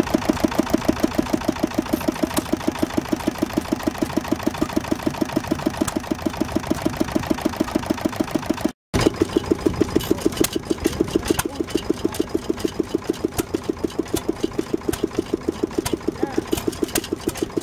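A small Lister single-cylinder stationary engine running with a fast, even exhaust beat. About halfway through, a cut brings in a Stover single-cylinder stationary engine running with a similar steady beat.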